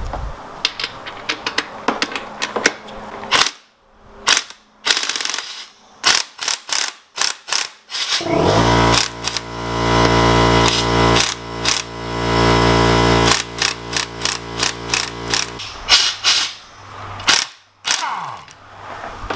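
Air impact wrench hammering on a strut top-mount nut, first in a string of short rattling bursts, then held on for about seven seconds of steady buzzing hammering, then short bursts again.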